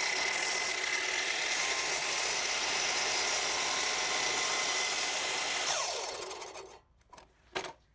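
Makita sliding compound miter saw running and cutting through a walnut board, with a steady high whine over the noise of the cut. About six seconds in the motor spins down, falling in pitch, and a few clicks follow.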